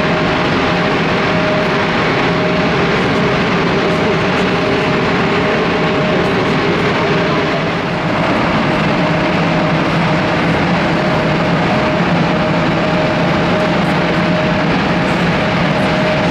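Jet airliner engines running steadily: a loud, even rush of noise with a steady mid-pitched whine through it. The level dips briefly about eight seconds in.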